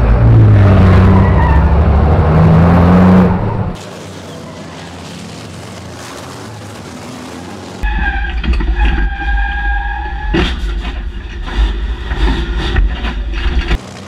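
Racing truck's turbo-diesel engine heard loud from inside the cab, its pitch rising and falling with the revs. After about four seconds it gives way to a quieter steady hiss for a few seconds. Then another truck's cab sound comes in loud: engine with a steady high whine over it and several sharp knocks.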